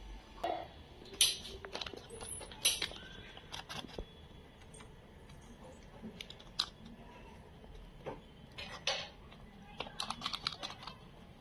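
Wooden spatula scraping a pan and spreading a thick barfi mixture in a paper-lined tray: irregular light clicks, taps and scrapes, the sharpest two a little over one and nearly three seconds in.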